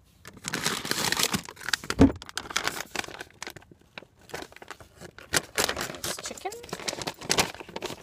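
Crinkling and rustling of a plastic food pouch being handled and torn open at the top, with a dull thump about two seconds in.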